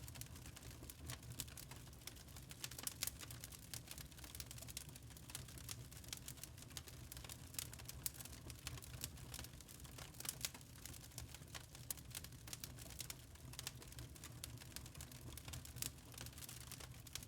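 Log fire burning in a fireplace: wood crackling with many small irregular pops and snaps over a low steady rumble.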